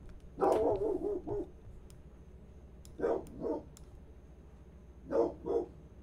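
A dog barking: one drawn-out bark shortly after the start, then two quick double barks.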